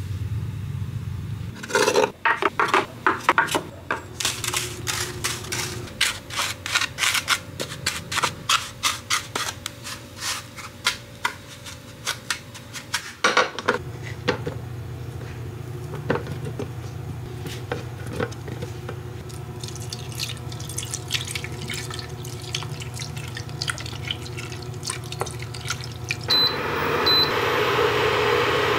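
A spatula scraping and scooping crumbs in a ceramic-coated pot: a quick, irregular run of scrapes and taps through the first half. Later a low hum runs underneath. Near the end a portable induction cooktop beeps twice as it is switched on, and its cooling fan starts running steadily.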